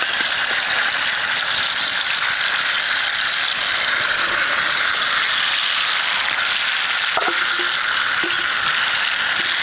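Chicken pieces in tomato masala frying in hot oil in a small metal pan over a wood fire: a steady, fine sizzle.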